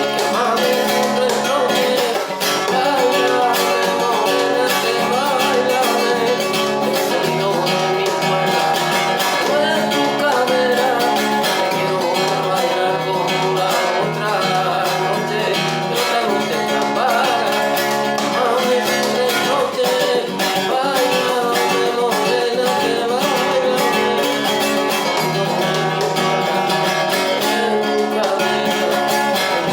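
Guitar music: strings plucked in a continuous run of notes at a steady level.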